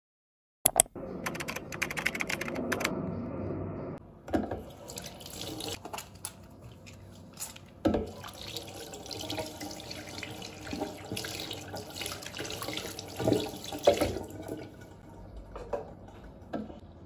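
Water running from a bathroom mixer tap into the sink. It starts with a click under a second in, runs loudest for the first few seconds and then more softly, with a few knocks and clunks of handling at the basin.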